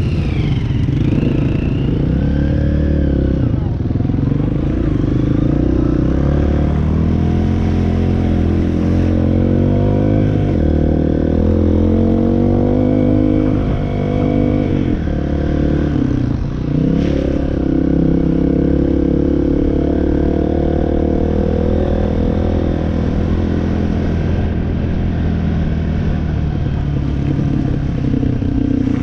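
Off-road machine's engine running under load on a trail, its pitch rising and falling with the throttle, with a brief dip about sixteen seconds in.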